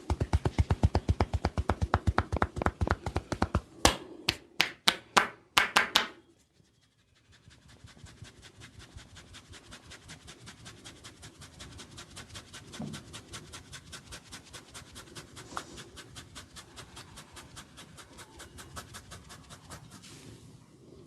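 Hands tapping rapidly on a person's head during a barber's head massage, several strikes a second, with a handful of louder, sharper slaps about four to six seconds in. After a brief pause the tapping resumes, lighter and steady.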